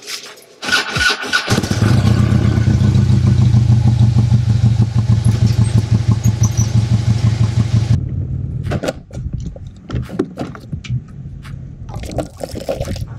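Harley-Davidson Road Glide's V-twin engine turning over on the starter and catching about a second and a half in, then running loudly and steadily until it cuts off abruptly about eight seconds in. A few light clicks and knocks follow.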